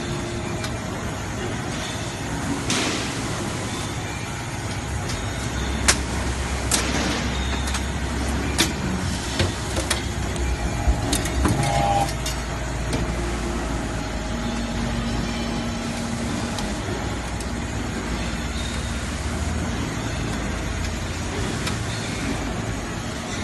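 Scrap steel debris baling press running with a steady low machine hum, and a scattering of sharp metal knocks and clanks through the middle of the stretch.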